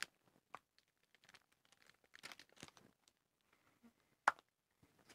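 Faint crinkling of a plastic bread wrapper being handled, with a single sharp click a little over four seconds in.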